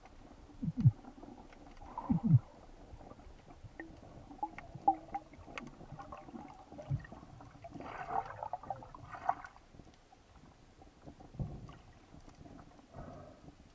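Underwater sound picked up through a diver's camera housing: two loud, low, muffled thuds in the first few seconds, scattered small clicks, and a couple of brief gurgling rushes of water noise about two-thirds of the way through.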